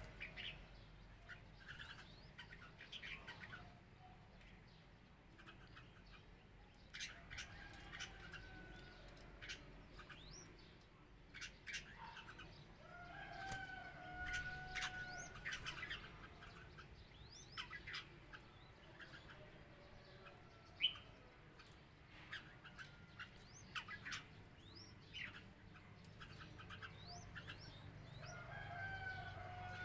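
Red-whiskered bulbuls chirping in short, sharp rising notes, mixed with a few longer, level drawn-out calls, the clearest about halfway through and near the end. A single sharp tap comes about two-thirds of the way through.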